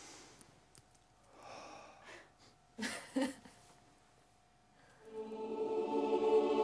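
Quiet room with two short soft sounds about three seconds in, then background choral music fades in about five seconds in as a held chord that grows louder.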